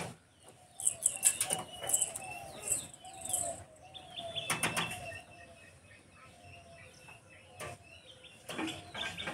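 Pigeons' wings flapping in several short bursts, with bird chirps and calls between them.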